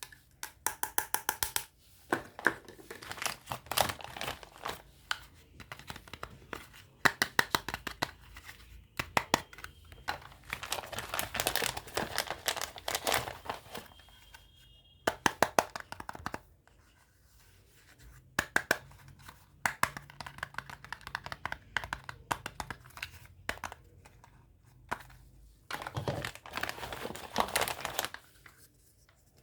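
Packaging being torn and crinkled while small plastic toy kitchen pieces are unwrapped and handled, with many sharp clicks and taps in bunches and short pauses between.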